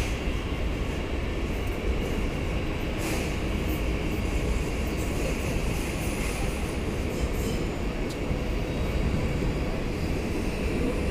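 A Z 50000 Francilien electric multiple unit pulling out of the station and passing close by: a steady low rumble of the train running on the rails.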